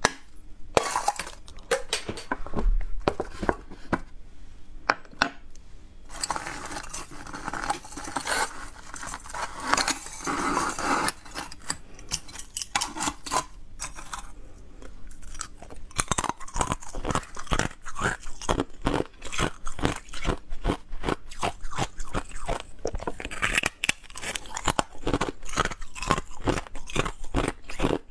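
Hard frozen ice being bitten and chewed, a rapid string of sharp crunches and cracks, with pieces of ice snapping as they are broken off.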